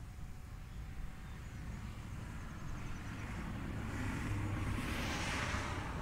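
A road vehicle going by: a rushing noise over a low rumble that grows louder, is loudest about five seconds in, and starts to fade at the end.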